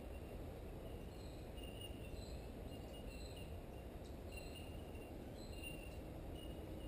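Creekside bush ambience: short high chirping calls repeat irregularly about every half second, at a couple of different pitches, over a low steady background noise.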